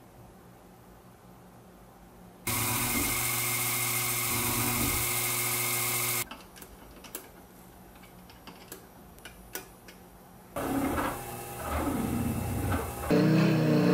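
Desktop CNC milling machine: the spindle and an end mill cutting an aluminium block, in stretches that start and stop abruptly. A loud steady run starts about two and a half seconds in and cuts off near six seconds; a few light clicks follow, then cutting resumes about ten and a half seconds in, with a wavering tone near the end.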